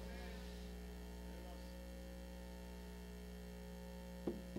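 Steady electrical mains hum from a microphone and sound system, with one short tap near the end.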